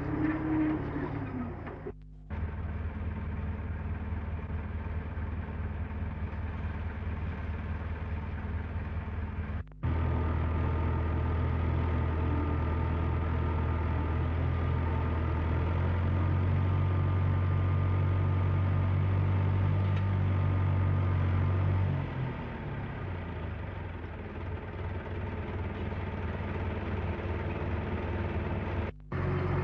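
Engine of a forestry cable-crane extraction winch running steadily with a low engine note. The sound cuts out briefly three times, and is louder from about ten seconds in until it eases off about twenty-two seconds in.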